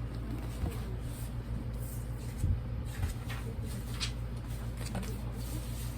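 A few soft knocks and scrapes from a cardboard product box being handled, over a steady low hum.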